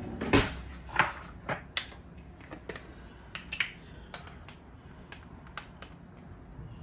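Glass seasoning jars being picked up and clinked, and a jar's lid twisted off and set down on a granite countertop. It is an irregular series of sharp clicks and clinks, loudest in the first second and a half.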